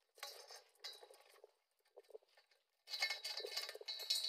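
Irregular metallic clinking and clattering in short bursts, with a brief lull in the middle and a louder, busier stretch near the end.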